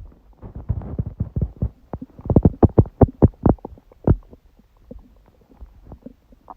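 Stomach growling: an irregular run of gurgling pops and squelches, densest and loudest about two to four seconds in, then fading to fainter gurgles. The gut is digesting a heavy udon meal some hours later, which the owner takes for her stomach being surprised by gluten after a long break.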